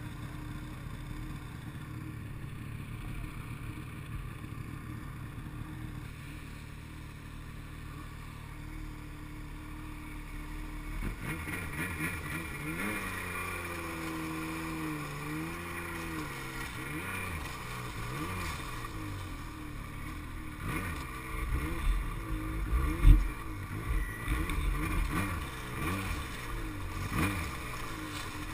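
Snowmobile engine running steadily for about the first ten seconds, then its pitch rising and falling repeatedly as the throttle is opened and eased, with a few sharp thumps in the second half.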